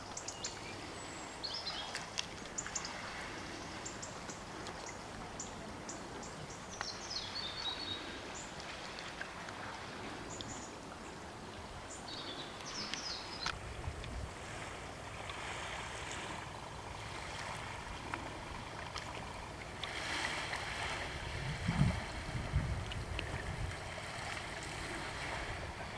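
Small birds chirping in short, scattered bursts through the first half over a faint outdoor hiss. From about halfway, low rumbling gusts of wind buffet the microphone, strongest a little past two-thirds of the way in.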